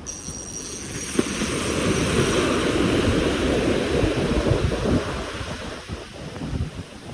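A rushing, splashing water noise with wind buffeting the microphone. It swells for a few seconds and then eases off, with one sharp click about a second in.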